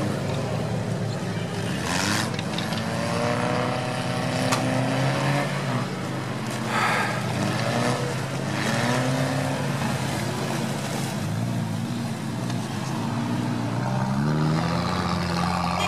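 Engines of several off-road 4x4s running at once, revved up and down as they work through deep snow, the pitch rising and falling again and again.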